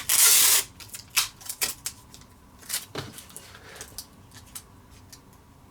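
Sticky tape pulled off the roll in one quick rasping tear at the start, followed by a scatter of light clicks and taps as the tape and plastic parts are handled.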